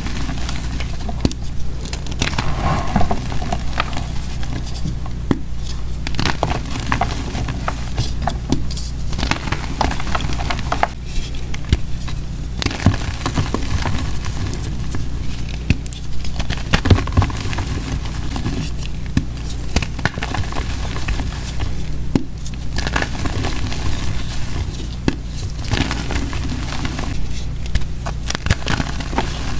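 Blocks of soft, powdery gym chalk crushed and crumbled by hand: crisp crunching and crackling as chunks break apart, with crumbs and powder pattering down. The crunching comes in clusters every few seconds with short lulls between.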